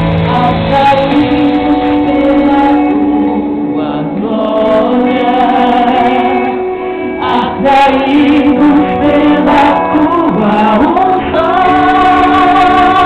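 A woman sings a gospel song live into a microphone over backing music, holding long sustained notes. The sound is loud and dull, with nothing above the upper midrange.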